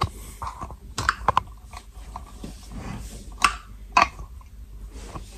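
Handling noise: scattered light clicks and knocks as the phone camera is moved and set in place. There is a quick cluster of taps about a second in and two sharper clicks near the middle and about four seconds in.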